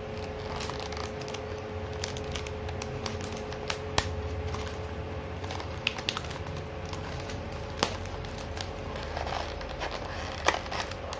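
Clear plastic wrap being peeled and torn by hand off a small cardboard charger box: scattered crinkling and crackling with a few sharp snaps, over a faint steady hum.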